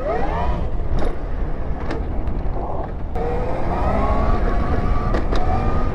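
Electric dirt bike motor whining under way, its pitch rising and dipping at the start and climbing slowly again from about three seconds in as the bike gathers speed, over a low rumble of wind on the microphone.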